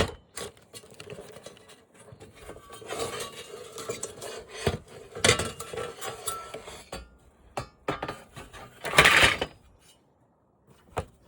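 Sheet-metal parts of a flat-screen TV being handled and worked apart: scattered clinks, knocks and rattles of metal, with a longer, louder scraping clatter about nine seconds in.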